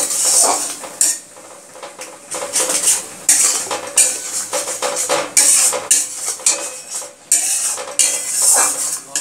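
A spatula scraping and knocking around a metal kadai in irregular strokes, stirring yogurt fried with garlic, green chillies and turmeric as it sizzles. The strokes ease off about a second in and pick up again, loudest near the end.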